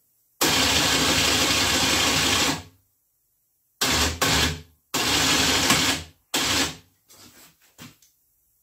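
Electric ATV winch motor running in five separate bursts, each starting and stopping abruptly: a run of about two seconds first, then four shorter runs as the cable is wound in steps.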